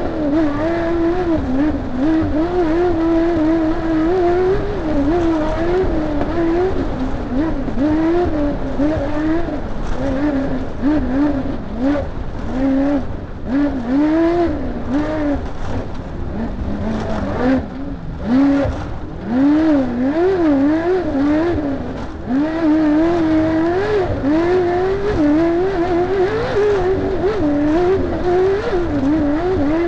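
Off-road race car's engine heard from inside the car, its pitch rising and falling again and again as the throttle comes on and off, with scattered knocks and rattles.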